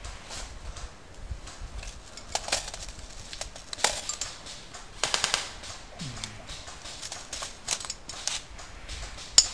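Airsoft guns firing: scattered single sharp shots, with a short rapid burst about five seconds in.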